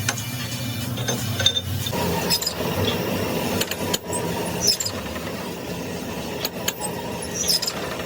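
Steady workshop noise with scattered sharp clicks and knocks from tools working on metal parts.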